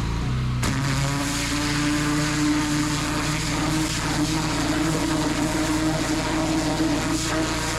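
Pressure washer running at full pressure with a turbo nozzle: the engine runs steadily, and under a second in the spray comes on with a loud, continuous hiss and the engine note shifts under load as the jet shreds a pumpkin.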